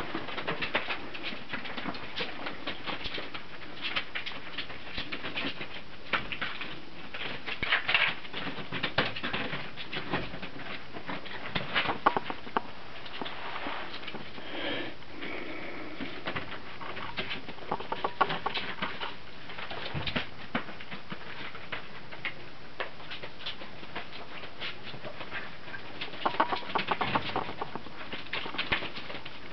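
Young Brittany puppies scrabbling and pattering around a pen, with many small clicks and scratches from their paws and claws. A brief pitched squeak comes about halfway through.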